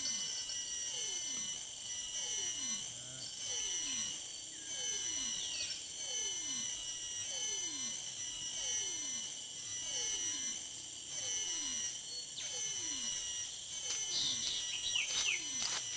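A night chorus of insects buzzing steadily at a high pitch, with a low call that drops sharply in pitch repeated about once a second.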